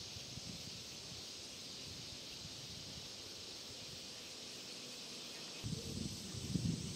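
Steady high hiss of summer insects. Near the end, an uneven low rumble on the microphone comes in over it.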